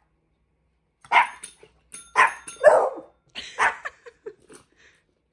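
A dog barking: four loud, sharp barks over about two and a half seconds, then a few softer, shorter yips.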